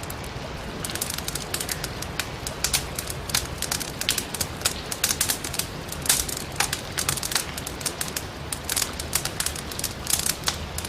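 Firewood burning in a fireplace, crackling with dense, irregular pops and snaps over a steady low rumble of the flames.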